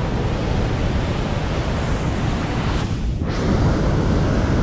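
Steady rush of fast whitewater from river rapids, mixed with wind buffeting the microphone, briefly dipping about three seconds in.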